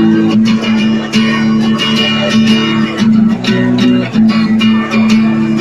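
Acoustic guitar strummed in a steady rhythm, chords ringing, as an instrumental passage between sung verses.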